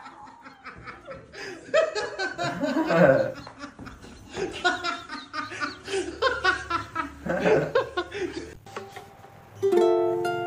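Several people laughing and calling out. Near the end a plucked ukulele tune starts.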